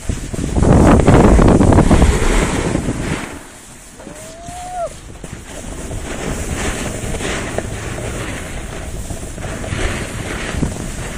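Wind buffeting the microphone while moving down a ski slope, mixed with the hiss and scrape of sliding on packed snow. The noise is loudest for the first few seconds, then drops back to a steadier rush with slow surges. A short tone that rises and falls comes in about four seconds in.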